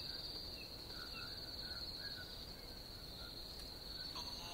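Insects trilling steadily at a high pitch, with short chirps repeating irregularly on top. Background music fades in just before the end.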